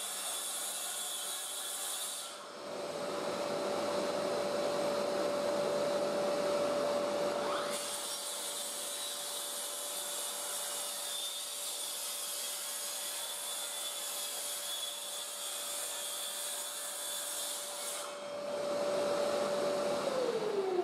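Makita cordless track saw running and cutting along the bottom edge of a wooden door on its guide rail, a steady whine over the hiss of a dust extractor drawing through the hose. Near the end the motor is released and its pitch falls as the blade winds down.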